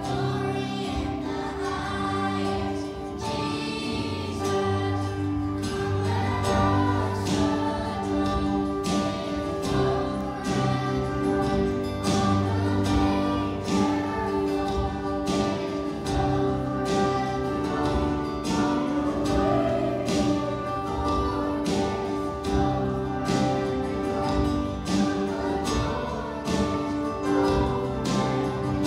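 Children's choir singing in unison to an instrumental accompaniment with a bass line and a steady beat.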